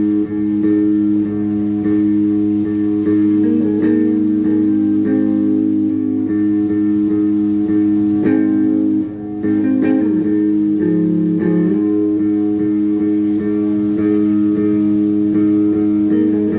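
Background music led by plucked guitar over sustained low notes, with a brief drop in level about halfway through.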